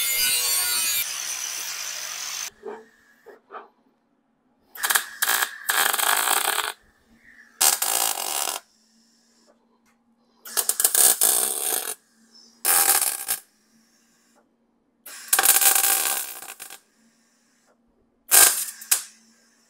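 MIG welder laying small tack welds on thin sheet steel, patching a VW Beetle fan shroud: about seven separate bursts of welding noise, each up to about a second and a half, with short pauses between. A continuous noise that stops about two and a half seconds in comes before them.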